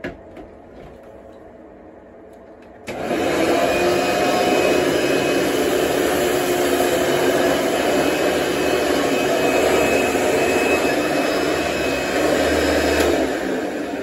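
Hoover Bagless Twin Chamber upright vacuum cleaner switched on about three seconds in, its motor then running loud and steady with a faint whine while it vacuums the carpet.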